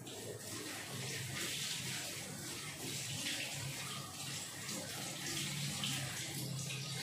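Vegetable chilli simmering and sizzling under a glass lid in a non-stick pan, a steady bubbling hiss with small crackles. A low hum comes and goes behind it.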